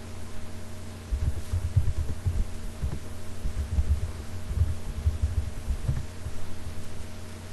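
Dull, irregular low thuds of typing on a computer keyboard over a steady electrical hum, the thuds running from about a second in until near the end.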